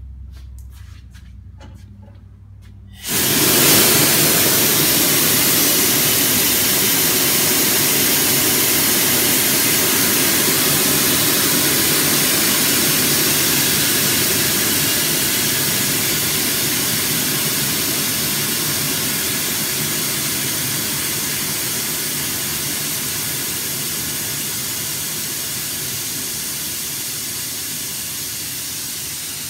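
Two-post car lift being lowered: a loud hiss starts suddenly about three seconds in and slowly fades.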